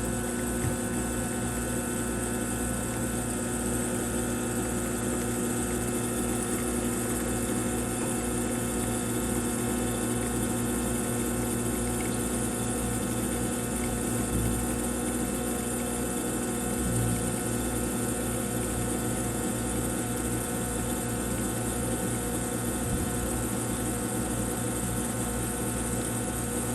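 La Spaziale Lucca espresso machine's pump running steadily with an even hum while it pulls a programmed double shot.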